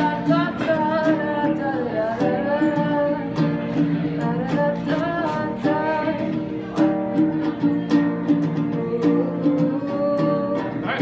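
A woman singing while strumming a ukulele, her voice carrying a bending melody over steady strummed chords.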